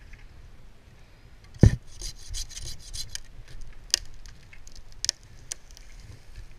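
A sharp knock about a second and a half in, then a run of uneven scraping, rubbing strokes against wood.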